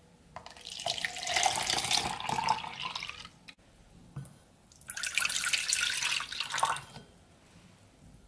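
Freshly squeezed orange juice poured in a stream twice: first from a bowl into a plastic measuring jug for about three seconds, then, after a short pause, from the jug into a stainless steel pot for about two seconds.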